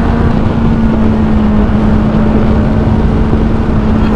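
Motorcycle engine running at a steady cruising speed, holding one even note, with wind rushing over the microphone.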